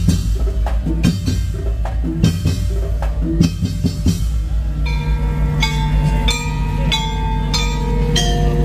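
Madurese tong-tong percussion ensemble playing: rhythmic drum strokes, then from about five seconds in steady pitched notes ringing over the beat.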